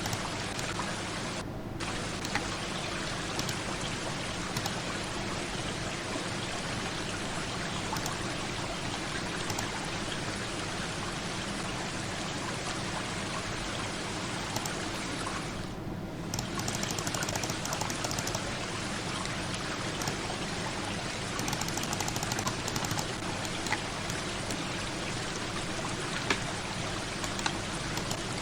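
Steady rushing water, like a stream or pouring water, as a continuous sound effect. Twice it briefly thins in its upper part, about a second and a half in and again about sixteen seconds in.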